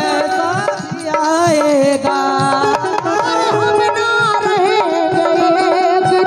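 Live Indian folk ghazal music: a woman singing into a microphone over keyboard accompaniment and hand-drum strokes.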